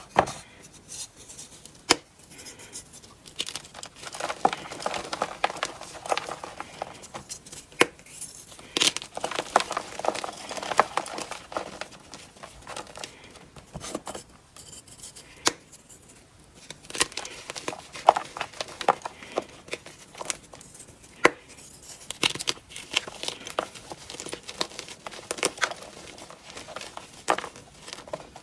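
Hands crushing crumbly, glitter-dusted powder blocks: sharp snaps as chunks break off, with stretches of dry crunching and crumbling in between.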